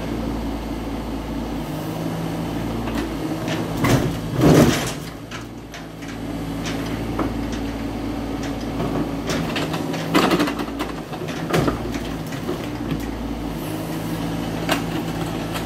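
Mini excavator's diesel engine running steadily under load as the machine climbs onto a truck bed on its tracks, with loud metallic clanks and scraping about four seconds in and again around ten and eleven seconds as the steel tracks bear on the truck's tailboard and ramps.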